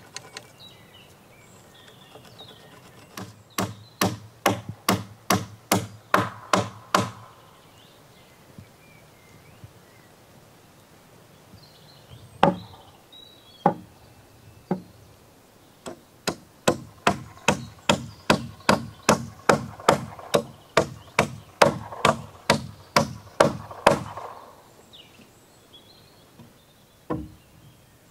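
Hammer driving nails into timber deck framing: a run of steady blows about three a second, a few single blows, then a longer run of steady blows, and one last blow near the end.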